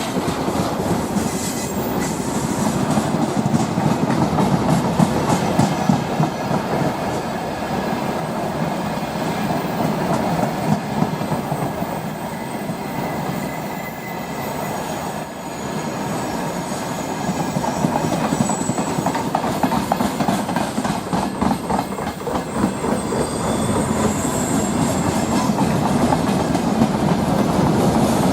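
Long freight train rolling past at speed, its wagons' wheels clattering steadily over the rail joints, with a few brief high-pitched wheel squeals.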